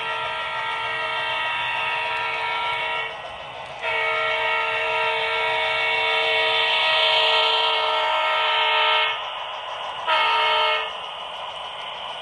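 Horn of an HO scale PRR E8 diesel locomotive model, a multi-tone air-horn sound played through its sound decoder: two long blasts and then a short one.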